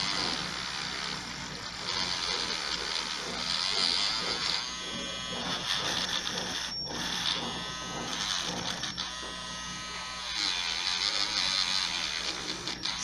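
Wire brush scraping and scouring scale and rust, softened by vinegar, off a metal part of a steam ironing station. The harsh scraping comes and goes in passes over a steady low hum.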